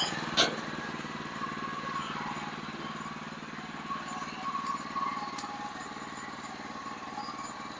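Sawmill engine running steadily, with a faint whine that comes and goes and a single sharp knock about half a second in.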